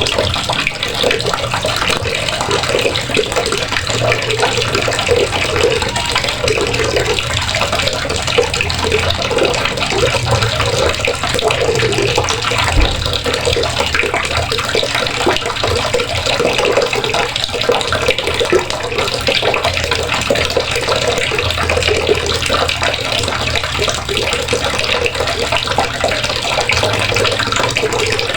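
Water running steadily from a faucet, splashing into the basin below.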